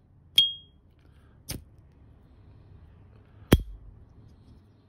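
S.T. Dupont Ligne 2 lighter's cap flipping open with a short, high, ringing ping. About a second later comes a soft click, then near the end a louder, sharper click with a brief ring at the same pitch.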